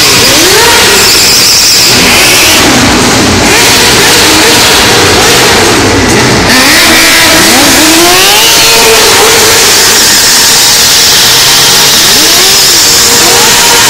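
Several sport motorcycle engines revving hard and very loud, their pitch rising and falling again and again as the bikes are ridden in stunts.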